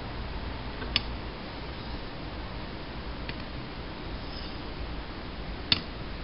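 Straight razor being honed on a wet Thuringian water hone. There is a sharp click about a second in and another near the end, with a fainter one between, as the razor's steel spine is turned over onto the stone, all over a steady hiss.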